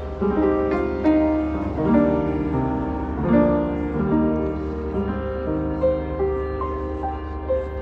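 Acoustic upright piano played by hand: chords and melody notes struck about once a second and left to ring, over a steady low rumble.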